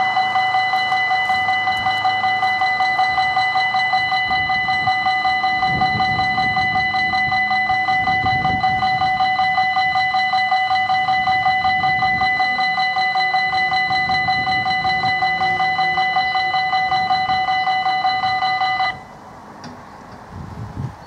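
Electronic warning bell of a Belgian railway level crossing, ringing in rapid, even pulses. It cuts off suddenly near the end, once the barriers are down.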